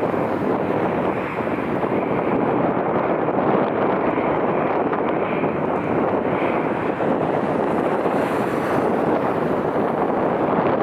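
Strong wind buffeting the microphone: a steady, loud rushing noise with no break.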